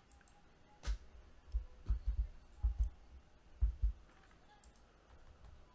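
Dull clicks and low thumps on a desk, mostly in quick pairs, from a computer mouse and keyboard being worked.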